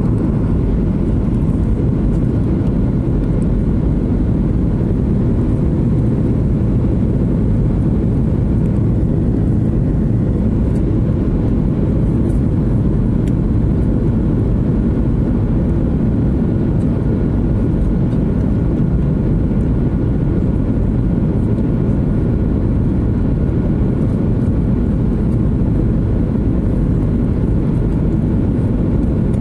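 Steady cabin noise of a jet airliner on final approach with its flaps extended: a low, even rumble of engines and airflow, with faint steady engine tones on top.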